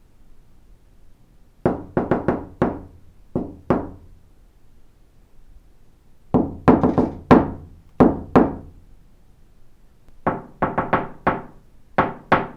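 Knocking on a door, sharp separate knocks in three bursts, each a quick run of about five knocks followed by two more.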